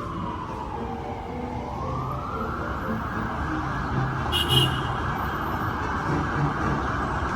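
Emergency vehicle siren wailing over street traffic: its pitch falls, rises again about two seconds in, then holds high and steady.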